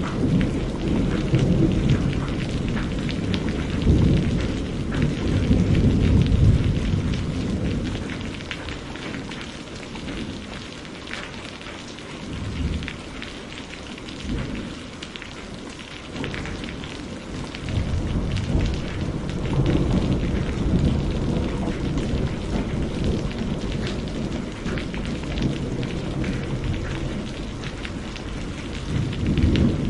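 Steady heavy rain with rolling thunder: long low rumbles in the first several seconds, easing off midway, then building again in the second half.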